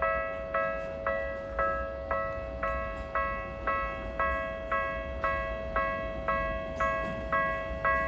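Japanese railway level-crossing warning bell ringing in a steady, even rhythm of about two strikes a second, each strike ringing briefly, over a continuous steady tone.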